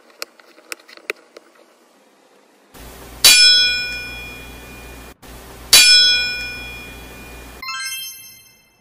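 Light plastic clicks as MathLink cubes are pressed together, then two loud bright chime sound effects about two and a half seconds apart, each ringing and dying away, and a short sparkly twinkle of high tones near the end.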